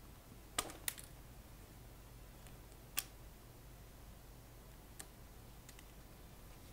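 A few sharp clicks of small hand tools and wire against a metal amplifier chassis as heater wires are fitted to the tube sockets: two close together about half a second in, one at three seconds and a fainter one at five, over a faint low hum.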